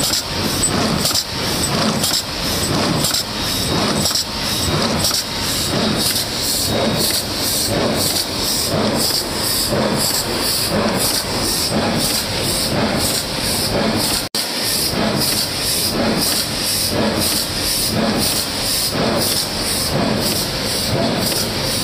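Stand-up pouch (four-side-seal) bag making machine running: a steady mechanical clatter and hiss that repeats in a regular cycle as it seals and punches the pouches. The sound breaks off for an instant about fourteen seconds in.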